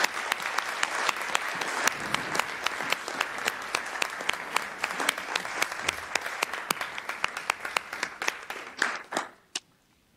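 A small group of people applauding: steady clapping that thins to a few scattered claps and stops near the end.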